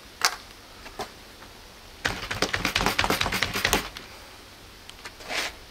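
A ballpoint pen being forced into a leather-covered stab-test target. A single click comes at the start and another about a second in, then a fast run of crackling taps for nearly two seconds as the pen is pushed through the leather, and a short scuffing sound near the end.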